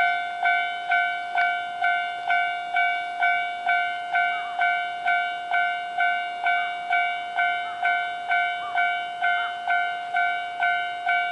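Railway level-crossing warning bell ringing steadily, about two strikes a second, each strike a bright ringing tone that fades before the next. It warns that a train is approaching.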